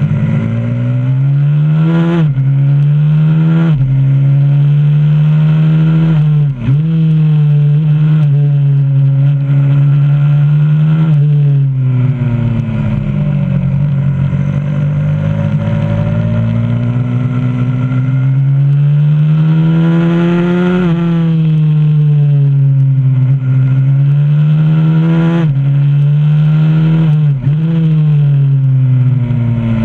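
A 125cc supermoto pit bike's single-cylinder engine at racing pace, heard from on board: the pitch climbs again and again under acceleration, breaks off sharply several times as gears change or the throttle is chopped, and sinks as the bike slows into corners.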